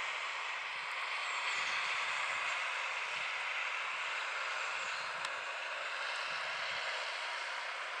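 John Deere 6230 tractor's four-cylinder diesel engine running steadily under load while pulling a plough through soil.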